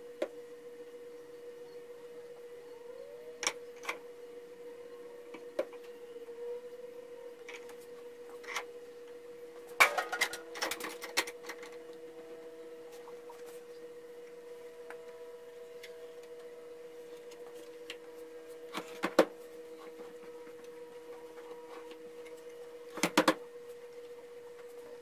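Bar clamps and wooden boards being handled and tightened on a workbench during a glue-up, giving scattered clicks and knocks, busiest about ten seconds in. A steady hum runs underneath.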